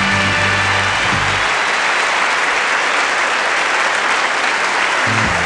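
Large concert audience applauding. The band's final chord rings out under it for the first second and a half, the applause then carries on alone, and near the end the band comes in with the next song.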